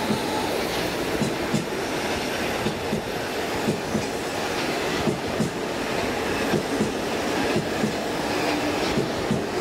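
Hamburg U-Bahn train running past, a steady rolling rumble with wheels clicking over the rail joints in pairs, a pair a little more than once a second.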